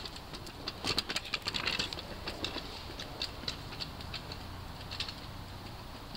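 Kick scooter's small wheels clicking and rattling over flagstone joints as it rolls past, busiest about one to two seconds in, then scattered lighter clicks, over a steady low wind rumble on the microphone.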